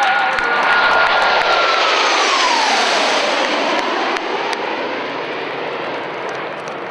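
Blue Angels F/A-18 Hornet jet flying past, loudest about a second in. Its whine drops in pitch about two to three seconds in as it passes, and the jet noise then slowly fades.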